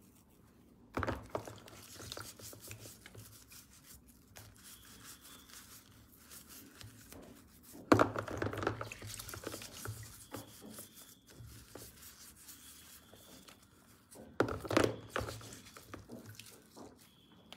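Handling noises: three bursts of rustling and knocking, about a second in, around the middle and near the end, with quieter rubbing and scraping between them.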